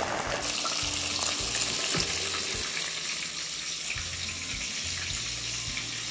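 Chicken deep-frying in hot oil: a steady sizzle and bubbling.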